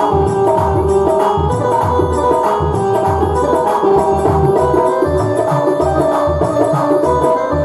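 Instrumental passage of a Hindu devotional bhajan: held melody notes over a steady rhythm of low hand-drum strokes.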